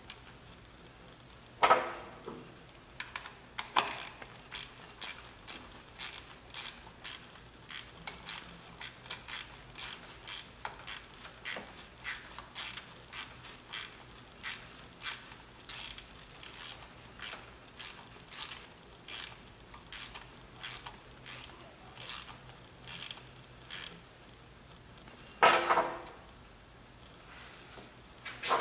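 Ratchet wrench clicking in short, even strokes, about two a second, backing out an ignition body plate bolt. A louder knock comes about two seconds in and another near the end.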